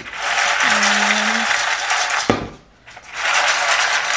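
Dry dog kibble rattling as it is shaken and swirled in a stainless steel bowl to mix in a powdered supplement: two long bouts of rattling, with a sharp knock of the bowl between them.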